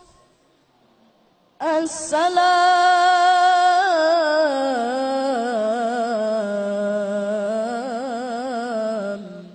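A boy reciting the Quran in the melodic tilawah style into a microphone: after a pause of about a second and a half, one long sung phrase with wavering ornaments, its pitch slowly falling until it dies away near the end.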